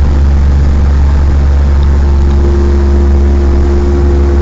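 A Mercury 90 outboard motor running steadily under way: a loud, constant engine drone with a low hum and steady tones that hold at one speed, heard from inside the boat's cabin.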